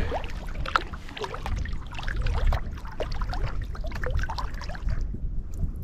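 Kayak paddling: water trickling and splashing off the double-bladed paddle with each stroke.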